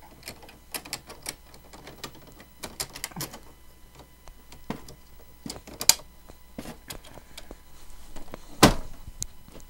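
Irregular clicks, taps and knocks of hard plastic being handled as ink cartridges are fitted into a Lexmark X5495 inkjet printer, with one loud sharp knock near the end.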